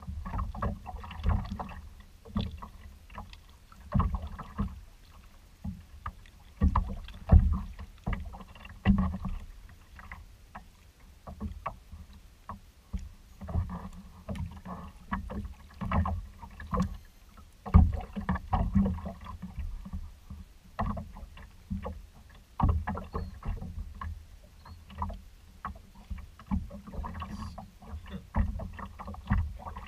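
Small choppy waves slapping and knocking against a kayak's hull, with irregular low thuds and splashes, a few a second and never in a steady rhythm.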